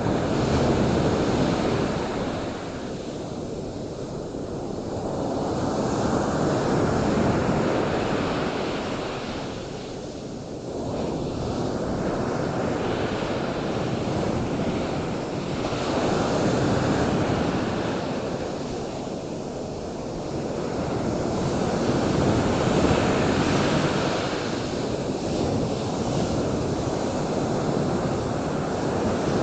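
Ocean surf washing ashore: a continuous rushing noise that swells and eases every several seconds as waves come in.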